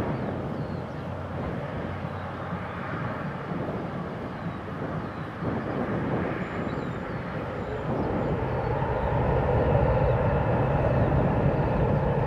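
Four jet engines of an Airbus A340 running on the runway: a steady rumble with a whine. About eight seconds in they spool up and grow clearly louder, with a stronger whine, as thrust is added.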